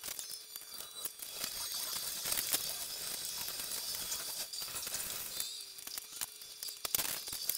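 Small Lego pieces and set parts being handled on a table, heard as a rapid scatter of small clicks and clatters over a steady hiss, with one sharper click near the end.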